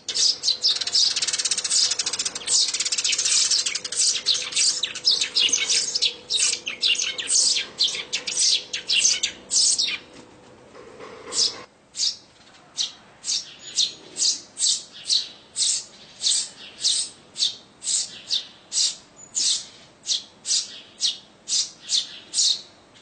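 Sparrow nestlings begging: a dense run of rapid, high chirps for about ten seconds, with a faint steady hum beneath. After a short pause near the middle, a single chick keeps calling with short, evenly spaced chirps, a little more than one a second.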